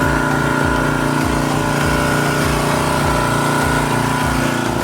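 Pressure washer running steadily while cleaning an air-conditioner condenser: a constant motor-and-pump drone with a low throb.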